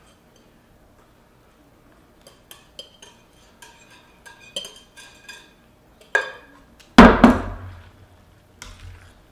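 A spoon clinks and scrapes against a glass mixing bowl as the egg-and-cheese mixture is scraped out into the pasta. About seven seconds in comes a loud knock as the heavy glass bowl is set down on the wooden butcher block, then tongs clink in the skillet.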